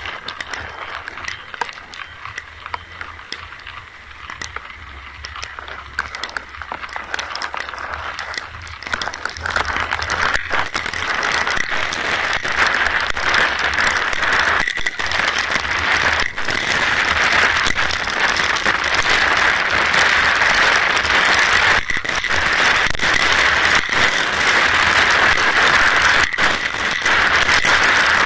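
Rain falling, a dense crackling hiss that grows louder about ten seconds in and then holds steady.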